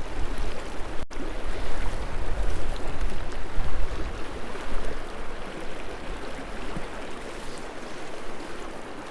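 River current rushing steadily, with wind rumbling on the microphone, heavier in the first half. The sound cuts out for an instant about a second in.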